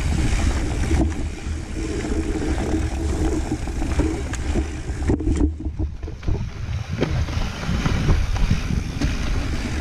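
A mountain bike descending a rocky dirt singletrack: tyres rumbling over dirt and stones, wind buffeting the camera microphone, and several sharp knocks as the bike hits bumps.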